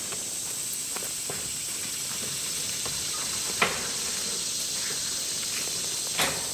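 A steady, high-pitched insect drone from the surrounding woods, broken by a few faint clicks and two short knocks, about three and a half and six seconds in.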